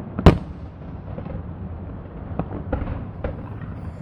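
Fireworks bursting: one loud sharp bang about a quarter second in, then a few fainter cracks in the second half, over a steady low rumble.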